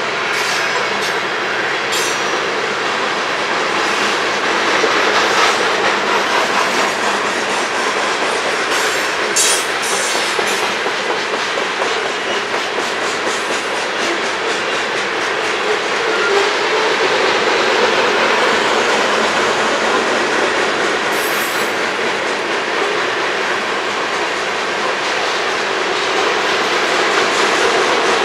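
Union Pacific freight train's covered hopper cars rolling past at speed: a steady rumble and clatter of steel wheels on the rails. Sharp clicks come around 2 and 9–10 seconds in, and there is a brief high squeal about 21 seconds in.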